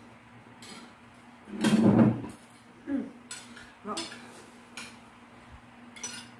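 Fork and spoon clinking against a ceramic dinner plate several times while eating, with a louder burst of noise about two seconds in and a few short vocal sounds.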